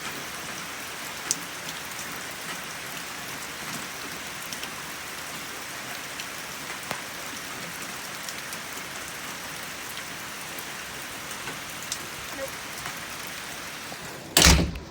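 Heavy rain pouring down in a steady hiss, with scattered drops ticking close by. A short, loud thump comes near the end.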